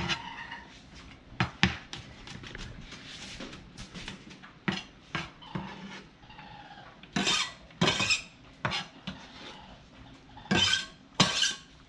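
Kitchen knife chopping shallots on a plastic cutting board: irregular sharp knocks of the blade on the board, with a few louder, longer clattering bursts around the middle and again near the end.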